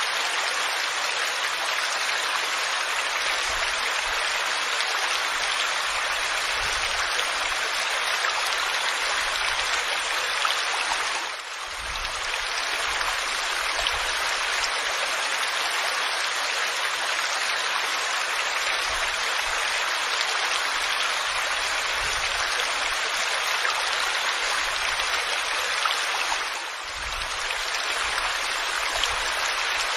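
Waterfall rushing in a steady, even hiss of falling water, which dips briefly twice.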